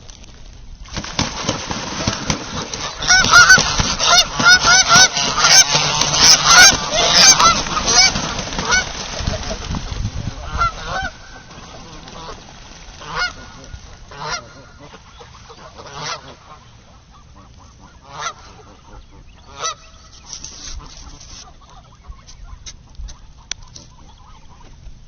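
A flock of geese honking loudly in a squabble: a dense, rapid burst of many overlapping honks for about ten seconds, then it breaks off into a few scattered single honks.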